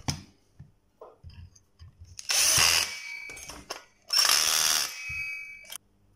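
Cordless drill-driver driving screws into a heatsink bracket: a short run of the motor about two seconds in and a longer one about four seconds in, with small handling clicks between.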